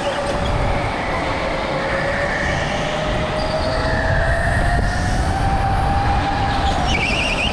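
Go-kart running at speed with the camera on board: a steady motor whine that rises in pitch through the middle and then holds, over a low rumble of tyres and chassis vibration. The tyres squeal briefly near the end as the kart corners.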